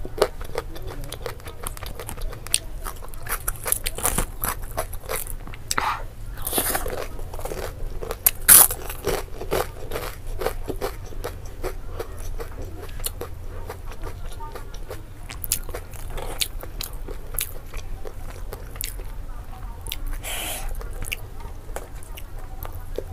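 Close-miked eating sounds: steady chewing with wet mouth noises and scattered crunchy bites. The loudest crackle comes about eight and a half seconds in.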